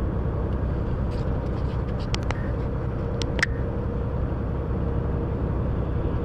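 Steady low rumble of a semi truck's engine and tyres heard inside the cab at highway speed, with a faint steady hum. A few sharp clicks come between about two and three and a half seconds in.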